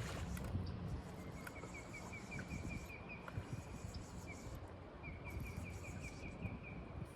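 A small bird singing two fast trills of short, evenly spaced high chirps, about six or seven a second, the first about a second in and the second near the end.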